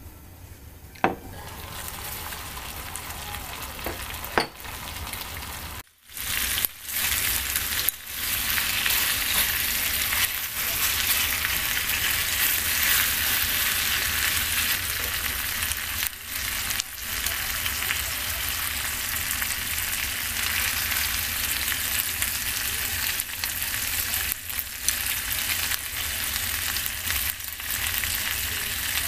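Two sharp knocks in the first few seconds, then food frying in a hot pan: a steady sizzle from about six seconds on.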